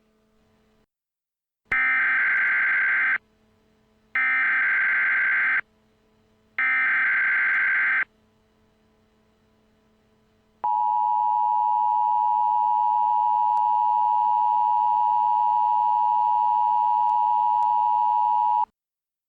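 Emergency Alert System alert tones: three bursts of warbling digital SAME header data, each about a second and a half, then the EAS attention signal, a steady two-tone beep held for about eight seconds that cuts off sharply. The tones mark the start of a new alert, ahead of its voice message.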